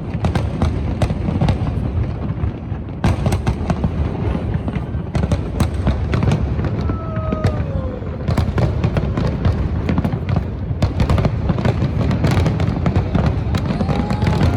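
Fireworks display: a dense, continuous barrage of bangs and crackles over a deep rumble.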